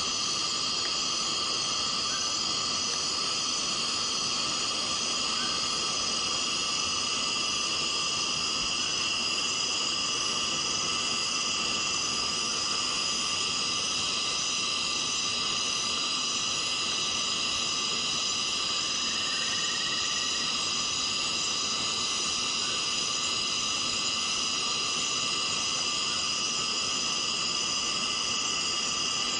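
Cicadas buzzing steadily in a forest, a dense continuous drone layered in several high bands, with no breaks or changes in loudness.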